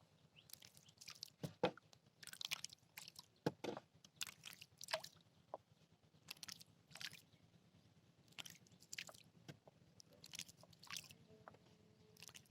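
Faint, irregular splashing and dripping of water as a small boat is rowed, with short wet ticks every half second or so.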